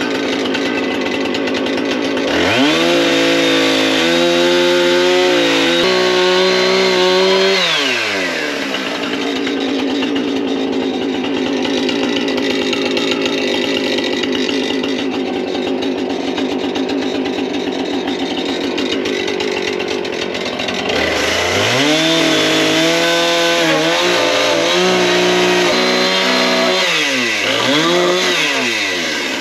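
Two-stroke chainsaw running steadily at idle, revved up twice for several seconds each time (about two seconds in, and again about two-thirds of the way through) as it cuts into a wooden post, its pitch shifting under load before dropping back to idle.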